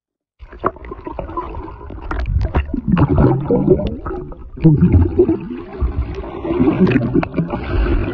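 Underwater sound through a waterproofed phone's microphone: a muffled rumble with gurgling bubbles and water churned by a swimmer, with scattered small clicks. It starts abruptly about half a second in.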